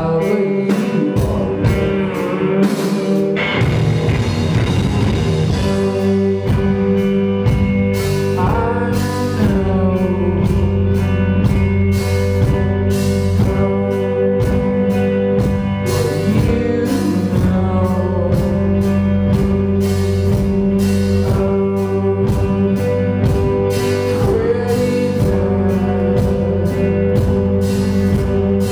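Live rock band playing through amplifiers: two electric guitars, bass guitar and a drum kit keeping a steady beat.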